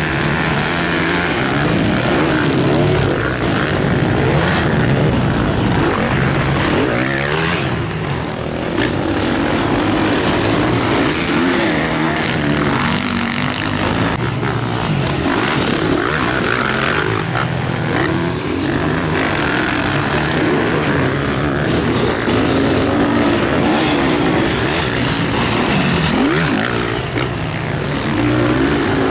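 Several motocross bikes racing on a dirt track, their engines revving up and down and overlapping, each pitch rising and falling as the throttle opens and closes through corners and climbs.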